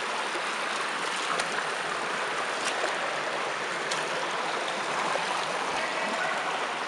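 Shallow creek water running steadily over rocks, with a few faint clicks.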